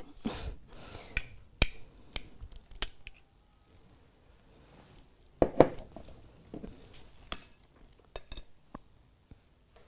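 Metal spoon clinking and scraping against a stemmed glass dessert cup as a soft creamy fruit mixture is spooned in. Scattered light clinks, with sharper ones about a second and a half and about five and a half seconds in.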